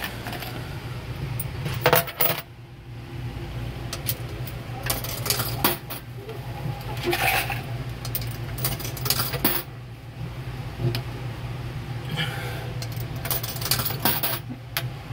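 Quarters pushed one at a time into the coin slot of a kiddie ride's coin mechanism, each clinking and clattering down through the mech, with a steady low hum underneath.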